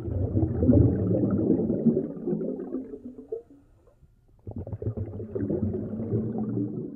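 Low, rumbling gurgle of air bubbles rising through aquarium water, in two long bursts with a short lull a little past three seconds in.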